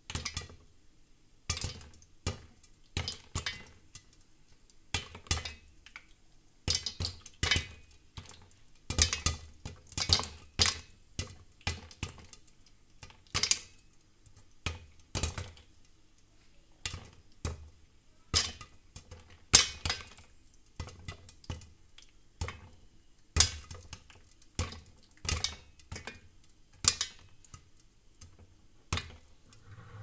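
Popcorn popping in a covered stainless-steel pot with a glass lid: irregular sharp pops, coming thickest through the middle and thinning out toward the end.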